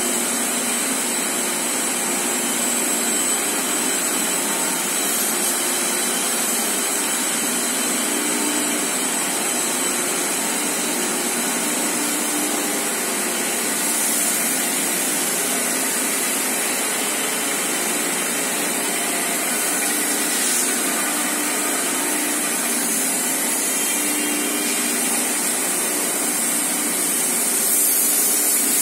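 High-speed tissue paper slitting machine running steadily, its paper web moving over the rollers: an even mechanical noise with a thin high whine over it.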